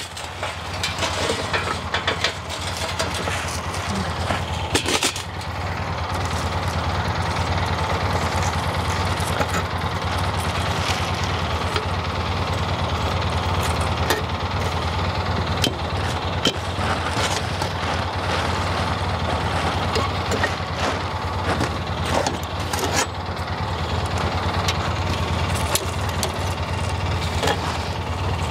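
An engine running steadily at idle, with occasional sharp metal clinks as hot charcoal briquettes are set onto a cast-iron Dutch oven lid with tongs.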